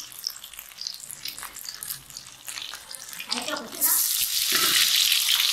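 Chicken pinwheels deep-frying in hot oil in a wok, crackling. About four seconds in, a piece dipped in flour-and-water batter is dropped into the oil and a loud sizzle starts.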